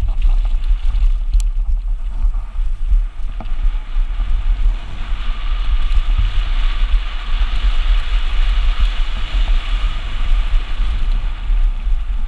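Wind rumbling on the microphone of a handlebar-mounted camera and the hiss of a mountain bike's tyres rolling down a dry dirt trail. The hiss grows louder from about five seconds in, then eases near the end.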